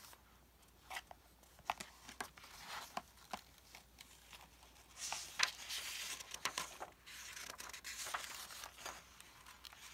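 Paperback book pages rustling and crinkling as they are turned and handled, with scattered small taps and clicks and two longer swishes of paper about five and eight seconds in.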